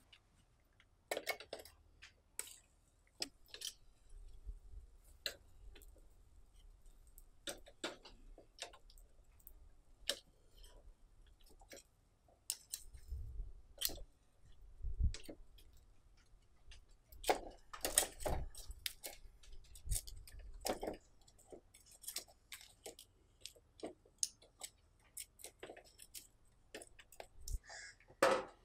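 Metal tongs clicking against a wire grill rack as pieces of food are turned over a charcoal fire: scattered sharp clicks, some in quick clusters, with the loudest near the end.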